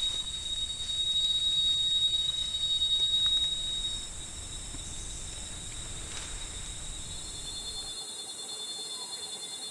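Steady high-pitched drone of jungle insects, with a fainter higher tone above it; it weakens and shifts slightly in pitch about four seconds in. A low rumble goes with it for the first few seconds and drops away at the same point.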